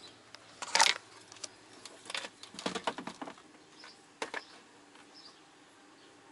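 A few sharp clicks and rattles from hard parts being handled, as during work on a car door's interior handle and cable. The loudest comes about a second in, a quick cluster follows around two to three seconds, and one more comes just past four seconds.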